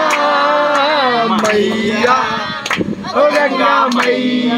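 A group of men and women singing together unaccompanied, holding long drawn-out notes, with a few hand claps along.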